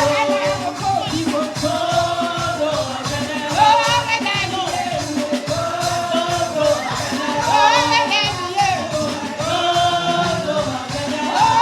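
Gospel praise song in a church service: voices sing long, wavering phrases over music with a steady percussive beat.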